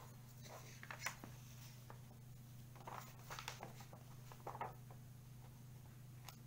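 Scissors cutting paper, with the sheet rustling as it is handled: a few faint, scattered snips and rustles over a steady low hum.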